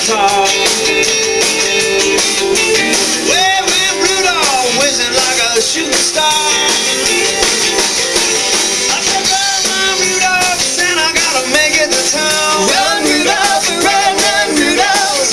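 Live band playing a rock-and-roll song on acoustic and electric guitars with a drum kit.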